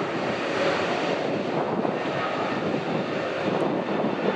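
Jet airliner engine noise, a steady rushing sound with no clear pitch.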